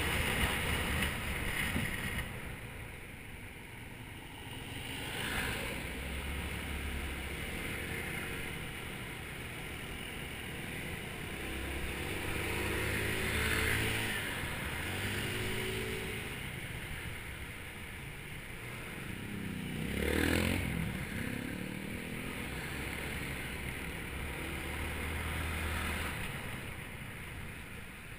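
Small automatic scooter engine running on the move, with wind noise on the handlebar-mounted microphone. Engine notes rise and fall as revs change and another scooter rides alongside, loudest about 13 and 20 seconds in.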